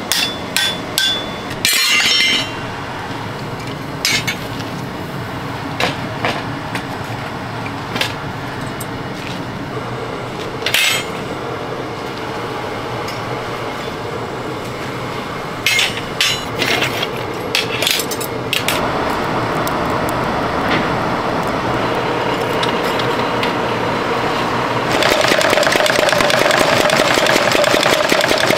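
Hand-hammer blows on hot steel at the anvil, sharp and ringing, scattered through the first two-thirds with a quick cluster of strikes a little past halfway. A steady machine running noise then comes up, and near the end a mechanical power hammer starts pounding rapidly and loudly on the glowing steel for a pitchfork.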